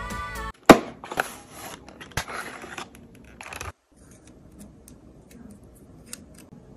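Close handling of a crescent-moon wand lipstick and its packaging. A sharp click comes just after a brief end of pop music, followed by scraping and crinkling with a few more taps, then only faint small clicks.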